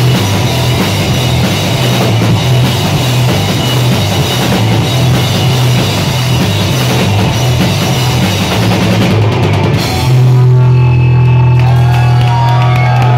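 Live rock band playing loud: electric guitar, bass guitar and drum kit pounding away. About ten seconds in the drumming stops and a low held note rings on.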